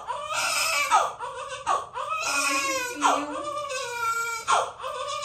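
A newborn baby crying hard, with about five wailing cries in a row, each rising and falling over roughly a second, separated by short sharp breaths.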